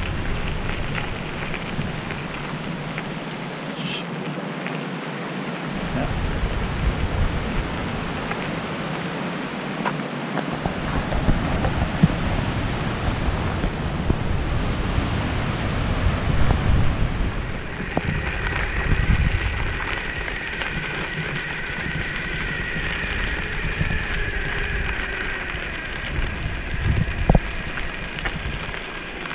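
Wind buffeting the microphone over the rumble of an electric longboard's all-terrain wheels rolling down a gravel track. A thin steady whine joins in about two-thirds of the way through.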